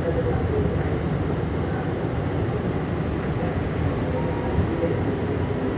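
Steady running noise inside a Manila MRT-3 train car on the elevated line, a low even rumble with faint whining tones on top.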